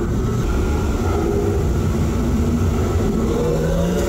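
Steady low rumble and rush of a water-ride boat moving along its channel, with a few faint held tones above it.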